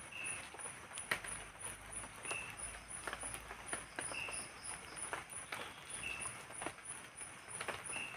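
Night forest insect chorus: one insect pulsing at a very high pitch about three times a second, and another short chirp about every two seconds. Over it, scattered irregular ticks of drizzle drops falling on a tarp.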